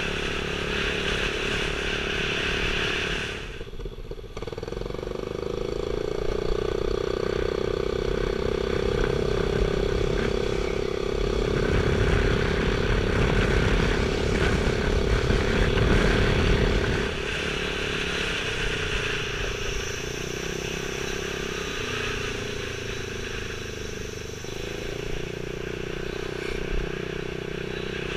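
Yamaha Grand Majesty scooter's engine running steadily under way, with road and wind noise. It eases off briefly about four seconds in. A heavier low rumble of wind on the microphone comes in midway for several seconds.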